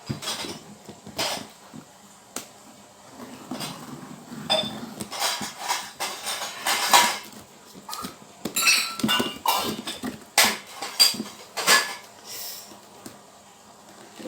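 A cardboard box being opened and its packed contents handled: rustling of packaging with many irregular knocks and clatters.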